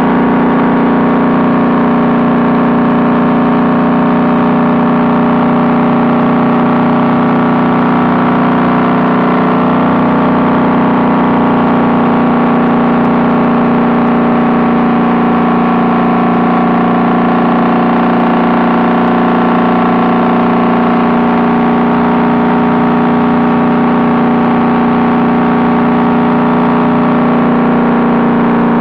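Honda Valkyrie's flat-six engine running steadily under way through its Cobra six-into-six exhaust pipes, its pitch shifting slightly about ten seconds in.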